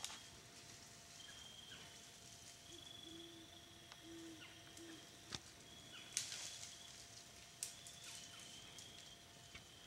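Faint rustling and snapping of brush as a young six-point buck thrashes its antlers in saplings, with a few sharp cracks of twigs about halfway through and again later.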